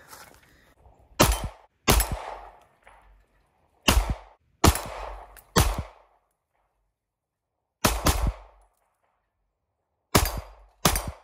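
About nine pistol shots from a handgun fitted with a Radian compressor, fired in quick groups of two or three, each crack followed by a short echo.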